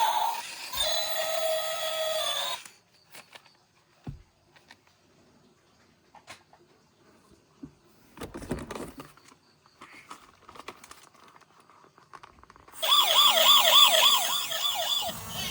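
Electronic siren of a battery-powered toy emergency vehicle: a held electronic tone that cuts off a couple of seconds in, then light clicks and rustling from handling the plastic toy, then a fast warbling wail for about two seconds near the end.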